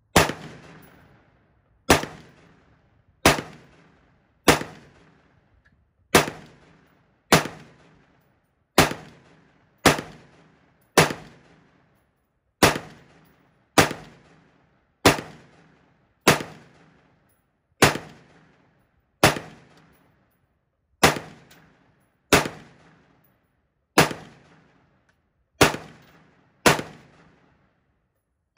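Black Rifle Arms C.A.P.S. external-piston AR-style rifle fired unsuppressed in semi-auto: a steady string of about twenty shots, roughly one a second, each followed by a short echoing decay.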